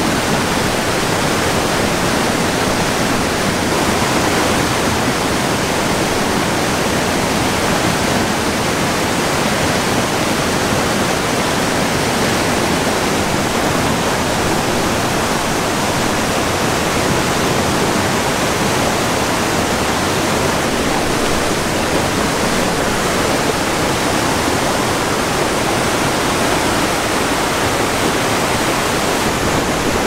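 Waterfall: water pouring and splashing in a steady, loud rush with no change.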